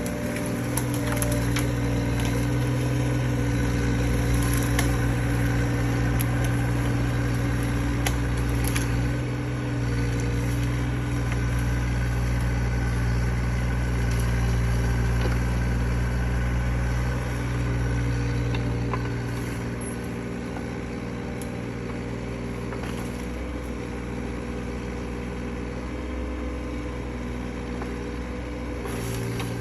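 Mini excavator's diesel engine running steadily under hydraulic load as the grapple works brush and logs, with scattered cracks and snaps of wood in the first ten seconds or so. The engine eases slightly about two-thirds of the way through.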